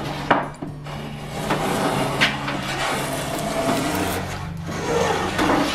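Plough plane cutting a groove along a wooden frame rail: the iron shaving the wood in rasping strokes, with a short pause soon after the start as one stroke ends and the next begins.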